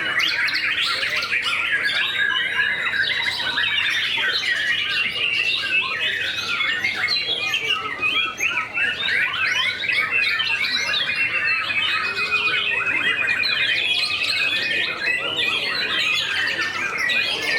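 Many caged white-rumped shamas (murai batu) singing at once: dense overlapping chirps and calls, with a long wavering trill running through.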